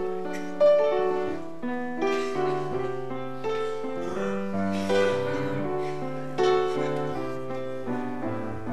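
Solo grand piano playing, with chords struck and held and a melody line above them, new notes coming about once a second.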